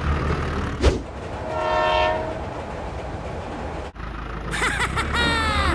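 Train horn sounding: one steady blast that swells and fades about two seconds in, and a second blast that falls in pitch near the end, over a steady low drone, with a sharp click about a second in.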